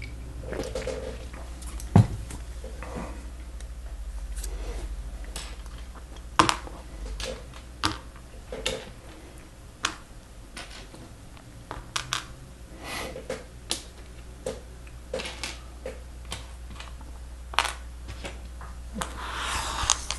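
Lego Technic plastic parts clicking and clacking at an irregular pace as pieces are handled and pins and beams are snapped together, with a brief rustle near the end.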